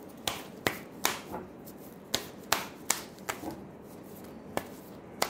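A deck of reading cards being shuffled by hand, giving about ten sharp snaps and taps of card on card at uneven intervals.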